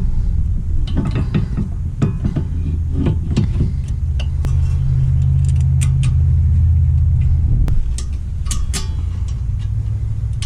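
Metal tools clinking and knocking on the rear brake caliper and hub. A steady low rumble runs through the middle for a few seconds, then drops away.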